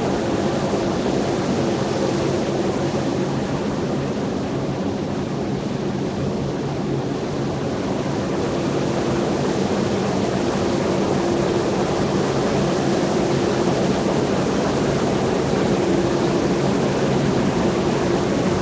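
Steady din of wire-stranding machinery running in a large steel wire factory hall, with a low hum held under a wash of noise.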